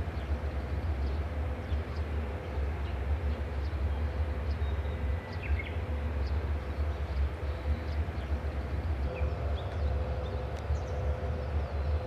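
Steady low hum and rumble of a standing freight train with its electric locomotive idling, with a faint steady tone running on and off and a few short bird chirps.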